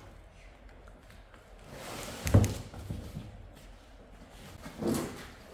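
Large solar panel and its cardboard shipping box being handled: a dull thud about two seconds in, and a second, softer knock with some cardboard scraping near the end.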